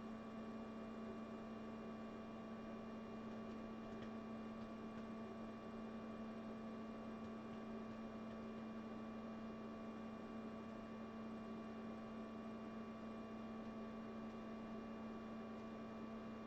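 A steady hum made of several constant tones, the lowest one the strongest, over a faint hiss.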